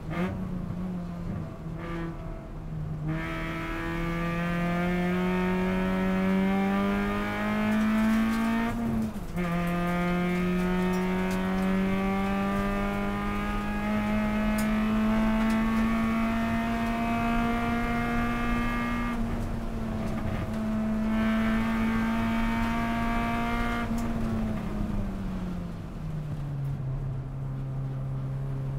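Honda Civic race car's engine heard from inside the cabin, pulling hard. The revs climb, drop sharply with an upshift about a third of the way in, then climb slowly again. Near the end the note falls away as the car brakes from about 150 km/h for a corner.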